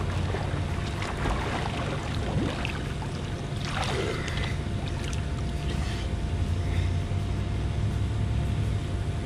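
Water splashing and churning from freestyle lap swimming in a pool, heard close to the microphone over a steady low rumble, with irregular splashes from the arm strokes.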